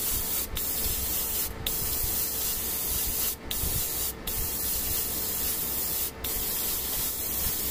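Airbrush spraying thin contrast paint in a steady hiss, broken by several very short gaps.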